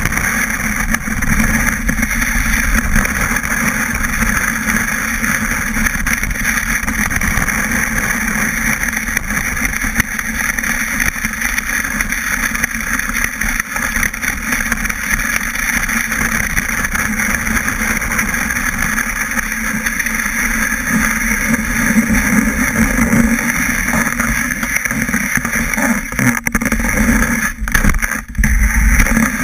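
Snowboard sliding over packed snow, heard through a camera mounted on the board. It makes a loud, steady scraping rumble, with a couple of brief drops near the end as the board slows.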